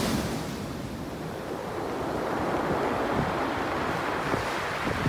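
Sea waves washing up a pebble beach and drawing back, the stones rattling in the backwash, with wind buffeting the microphone.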